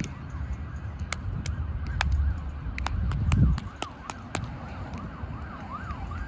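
An emergency vehicle's siren going in a fast up-and-down yelp, with a scatter of sharp slaps as a roundnet ball is hit during a rally. A low rumble swells to its loudest about three seconds in.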